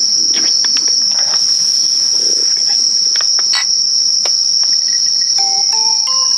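A steady, high-pitched chorus of night insects. About three and a half seconds in there is a sharp clink of drinking glasses touched together in a toast, and near the end a short rising run of chime-like musical notes begins.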